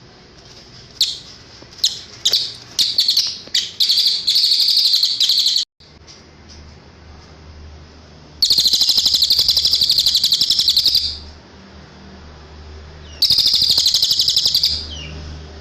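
Cililin bird singing: a few sharp, separate high chirps that run into a fast, high trill. Two more long rapid trills follow, each about two seconds long.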